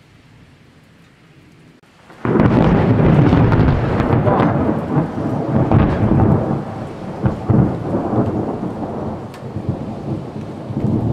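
Thunder during a rainstorm: after about two seconds of faint steady hiss, a loud clap breaks out and rolls on as uneven rumbling that slowly fades.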